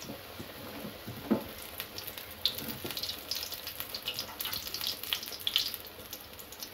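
Batter-coated brinjal slice (beguni) deep-frying in hot oil in an aluminium kadai: a steady sizzle full of quick crackles and pops, with one sharper click about a second in.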